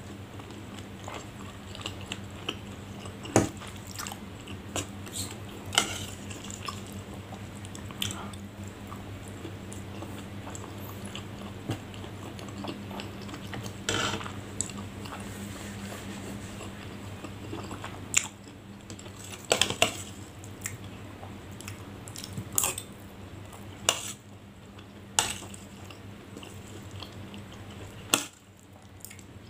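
Close-up chewing and mouth sounds of a person eating a spicy fried snack, with a metal spoon clinking and scraping on a ceramic plate several times.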